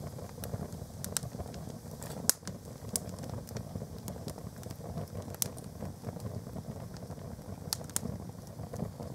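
Fire in a fireplace grate burning a canvas plimsoll: a steady low rush of flame with scattered sharp crackles and pops, the loudest pop a little over two seconds in.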